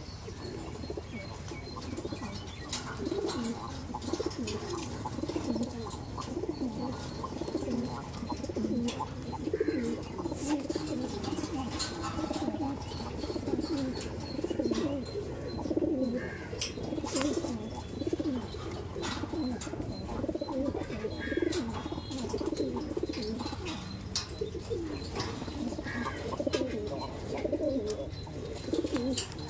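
Many racing homer pigeons cooing together, overlapping coos, with occasional sharp clicks.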